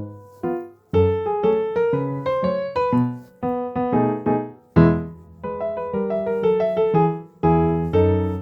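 Background music: a light piano tune in a steady rhythm, each note struck and fading.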